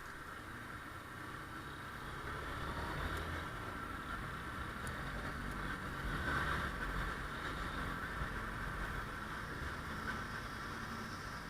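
Motorcycle running under way in traffic: a low engine rumble mixed with wind noise on the microphone, growing a little louder after a couple of seconds.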